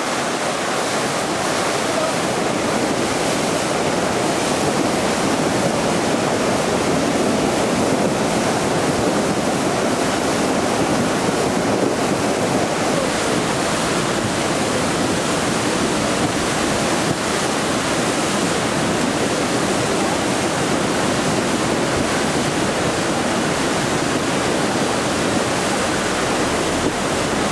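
River in flood: fast, muddy floodwater rushing and churning, with a loud, steady noise of water. The water surges and sprays against the side of a bridge.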